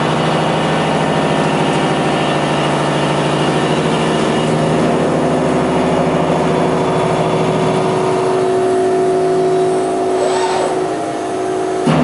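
Unisign Uniport machining centre milling a railway bogie frame: a steady hum from the spindle and cutter working the metal, with a few held pitches over a noisy grind. It eases off slightly near the end.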